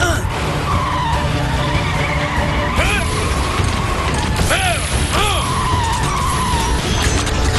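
Cartoon action sound effects: a vehicle engine and skidding noise over dramatic background music, with short swooping electronic effects about three seconds in and twice around five seconds in.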